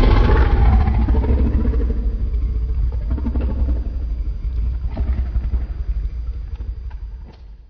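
A heavy, rumbling monster sound effect for Shin Godzilla. It starts abruptly, carries a bending pitched cry in its first second or two, then decays into a deep rumble that fades out over about seven seconds.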